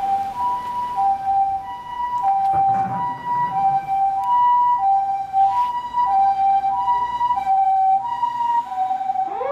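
Japanese ambulance siren sounding its two-tone hi-lo call, a higher and a lower tone taking turns, one pair about every second.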